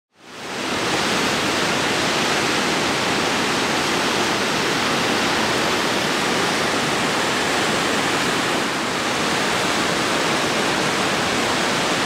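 Steady roar of Nairn Falls, a waterfall pouring through a rock gorge: a dense, even rush of water that fades in at the start.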